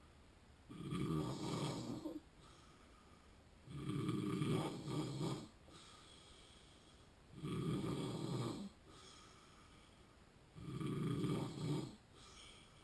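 A sleeping man with sleep apnea snoring, four snores at an even pace, about one every three and a half seconds, with quiet breathing between them.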